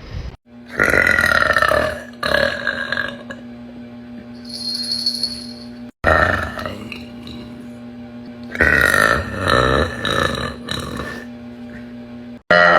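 A young woman burping loudly, several long burps one after another, in short clips cut together.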